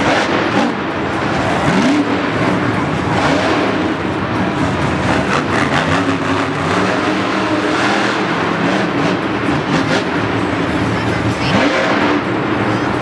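Monster truck engines running loud and revving, their pitch climbing sharply about two seconds in and again near the end.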